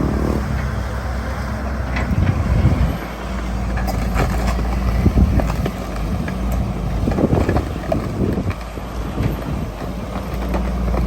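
Excavator's diesel engine running steadily, with scattered knocks and scrapes from the bucket digging into soil and stones.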